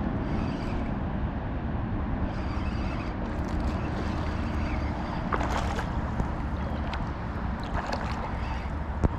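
Steady low rumble of wind on the microphone over moving creek water, with short crackling splashes about five and a half and eight seconds in and a sharp knock just before the end.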